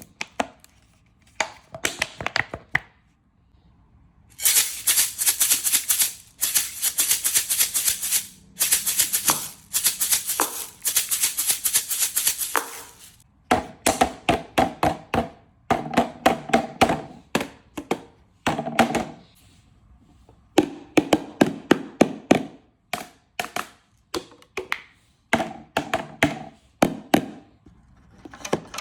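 Hand-made percussive noise: a few seconds of shaken rattling, like a maraca, then quick runs of taps on something that rings with a pitch.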